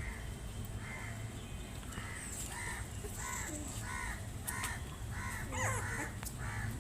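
Young puppies crying in a run of short, squeaky calls, about two a second, with a wavering whine mixed in near the end: the cries of puppies searching for their mother.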